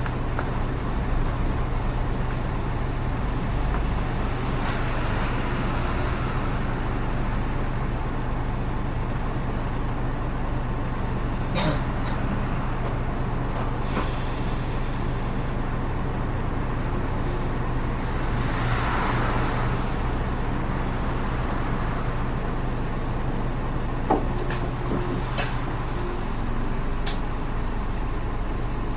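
Diesel engine of a PKG-RA274MAN city bus running steadily, heard from inside the passenger cabin, with an engine note that is unlike other buses of the same RA model. A few sharp clicks and a brief rushing hiss about two-thirds of the way through.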